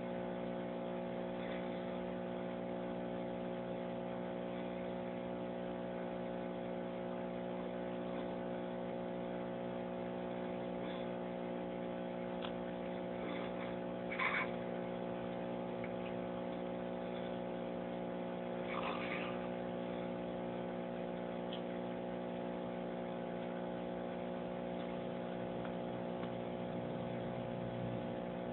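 A steady machine hum of many stacked tones at an even level throughout, with two short higher sounds about 14 and 19 seconds in.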